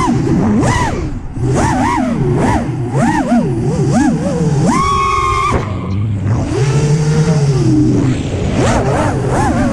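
FPV freestyle quadcopter's brushless motors whining, the pitch sweeping up and down fast with each throttle change. The pitch holds steady about five seconds in, and again at a lower pitch around seven seconds in.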